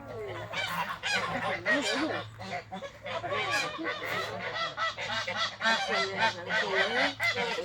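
A flock of domestic geese honking and calling, many short overlapping calls at once.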